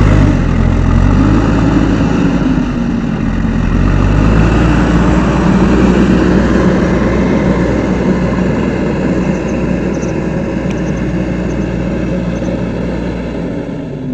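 Diesel engine of a JCB 3DX Eco backhoe loader running loudly and steadily, its pitch dipping and rising once in the first couple of seconds, then slowly getting quieter toward the end.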